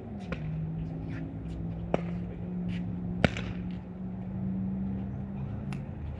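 Sharp pops of pickleball paddles hitting the plastic ball during a rally, four clear hits with the loudest about three seconds in. Under them runs a steady low engine-like drone that dips slightly in pitch at the start and stops near the end.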